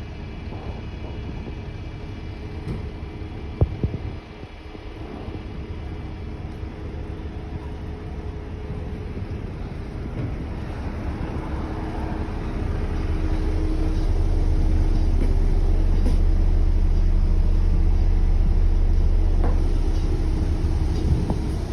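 Volvo B8L bus's diesel engine and drivetrain rumbling, growing louder about ten seconds in, with a continuous beeping running over it.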